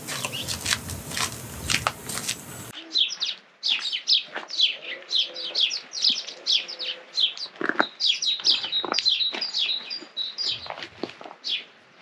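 Small birds chirping busily: many short, quick, falling chirps, several a second. For the first few seconds a loud rush of noise with clicks covers everything, then cuts off abruptly.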